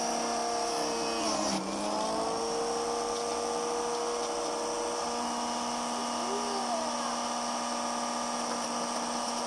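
Electric juicer motor running with a steady whine. About a second and a half in, its pitch sags briefly as apple pieces are pushed down the chute, then climbs back.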